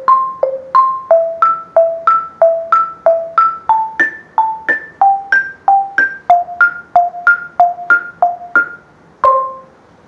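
Wooden-bar classroom xylophone struck with yarn mallets, about three strokes a second, each note alternating low and high an octave apart as the pattern steps through C, E, A, G and F. Near the end both Cs are struck together and ring out briefly.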